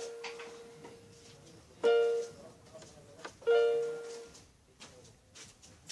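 Keyboard playing the same single note twice, about a second and a half apart, each note ringing and fading away, with the tail of an earlier note dying out at the start.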